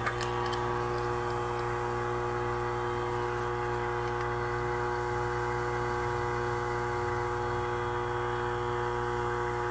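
Steady electrical hum with several held tones from the running equipment at the xTool D1 Pro laser engraver, with a faint click or two right at the start.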